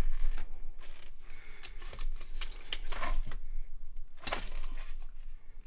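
Plastic clicks and rattling of loose Commodore computer keyboards being handled on the bench, with one louder knock about four seconds in.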